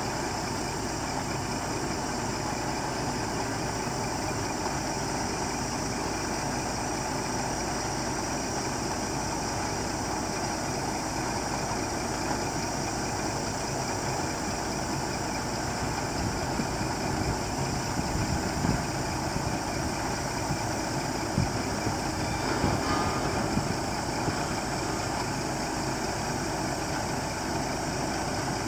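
Scania R480 truck's straight-six diesel engine running steadily while its Multilift hook-lift arm is worked hydraulically, with a few short louder knocks in the second half.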